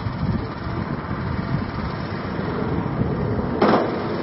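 Small engine of an amphibious rice thresher running steadily as the machine drives through flooded paddy, with one short loud thump about three and a half seconds in.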